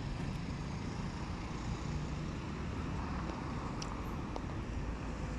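Faint, steady road-traffic noise from a nearby street: a low hum of car engines with no single event standing out.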